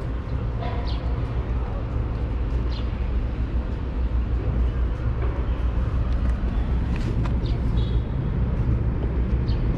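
City street ambience: a steady low rumble of traffic, with faint voices and a few short clicks.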